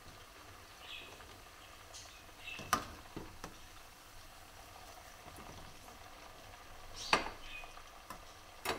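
Chicken pieces deep-frying in a stainless steel pot of oil, a steady low bubbling sizzle. Sharp metal clinks from the steel slotted spoon knocking on the pot and the wire frying basket come about a third of the way in and twice near the end.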